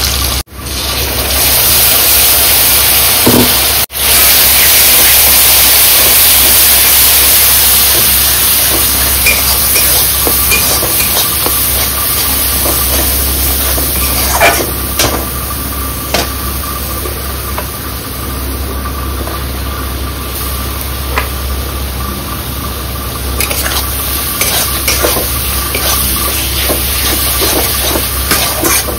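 Chopped onion sizzling as it fries in hot oil in a pan. The sizzle is loudest over the first several seconds and then eases, with a spatula clicking and scraping against the pan now and then.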